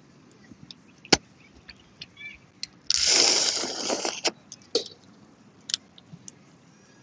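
Eating boiled crawfish: shells cracking and snapping between gloved fingers, with one sharp crack about a second in. A loud slurp of about a second comes around three seconds in as a crawfish is sucked, followed by a few smaller shell clicks.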